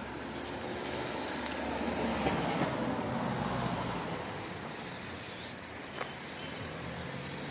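Street traffic: a passing vehicle's noise swells to its loudest about two to three seconds in, then fades.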